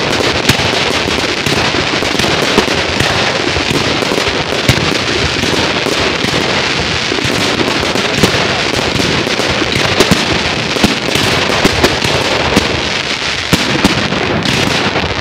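Fireworks display: a dense, unbroken crackle of exploding shells, with many sharp bangs through it.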